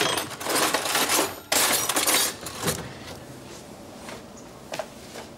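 A loud clattering crash lasting about two seconds, with a second burst about a second and a half in, followed by scattered lighter knocks and clinks.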